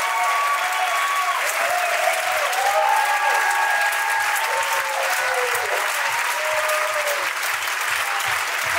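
Audience applauding steadily, with music and a faint steady beat underneath.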